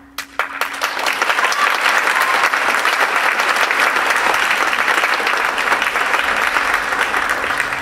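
Audience applauding: a few scattered claps, then full applause within about a second that holds steady.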